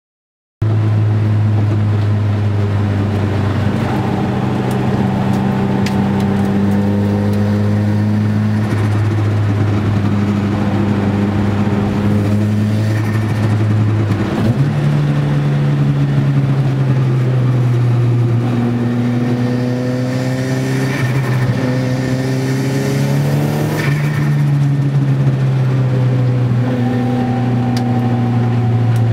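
Nissan Gazelle's turbocharged CA20DET four-cylinder engine running on track, heard from inside the cabin. Its note holds steady at first, steps up in pitch about halfway through, then climbs in a few short rises with drops between.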